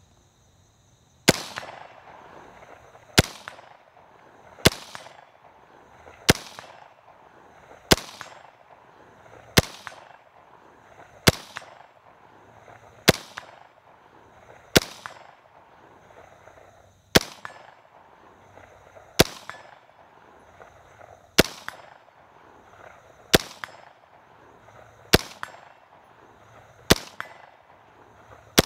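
Early semi-automatic AR-15 SP1 rifle firing .223 55-grain rounds: about fifteen single shots a second and a half to two seconds apart, each a sharp crack with a short echo.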